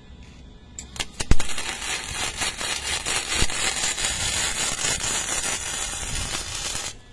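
Electric arc welding: a couple of sharp cracks as the arc strikes about a second in, then the arc's steady crackling sizzle as a weld is laid for about five seconds, cutting off suddenly near the end.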